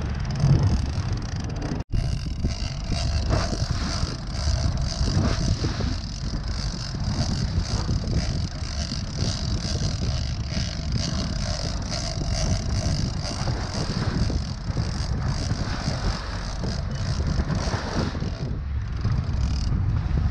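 Steady running noise of a fishing boat at sea, with a low engine rumble and wind buffeting the camera microphone. It cuts out for an instant about two seconds in.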